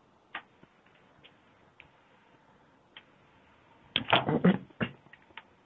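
A few faint scattered clicks, then about four seconds in a short burst of loud knocks and scrapes as the shoe last is picked up and handled on the board.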